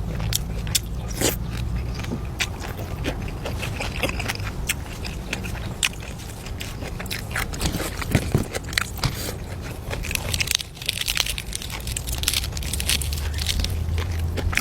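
A person eating, chewing and biting with crunching and many short sharp clicks.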